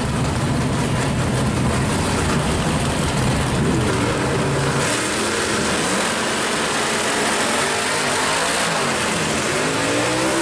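1965 Pontiac GTO drag car's engine running steadily, then revved up and down a few times, with a rising rev near the end as the rear tires start to spin in a burnout.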